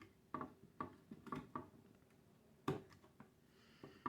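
Faint, scattered plastic clicks and taps of a DDR2 RAM stick being pulled out of a motherboard memory slot and lined up again, the loudest tap about two-thirds of the way through.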